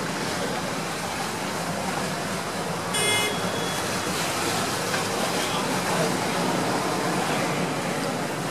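Steady rush of water and engine noise aboard a vaporetto water bus under way, with one short high-pitched beep about three seconds in.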